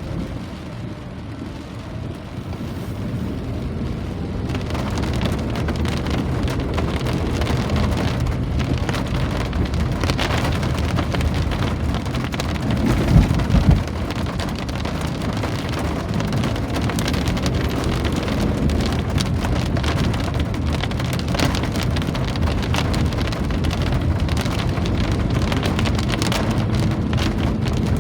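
Steady rain falling, growing heavier over the first few seconds and then holding even. A brief low thump comes about halfway through.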